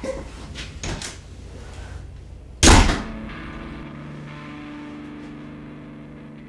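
A few soft knocks, then a single loud bang a little under three seconds in, followed by a low held musical drone of several steady tones that slowly fades.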